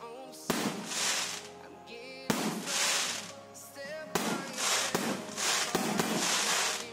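Aerial firework shells bursting overhead, four sharp bangs about two seconds apart, each trailing off in about a second of hiss. Music plays underneath.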